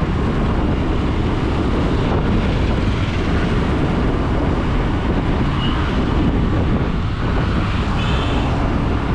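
Steady rush of wind over the microphone with engine and tyre noise from a motorcycle riding at speed on a wet road.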